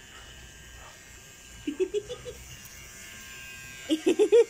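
Blueidea rechargeable pet hair trimmer running with a steady electric buzz. Twice, a short run of rapid, pitched, voice-like sounds breaks in over it, the second near the end and much louder.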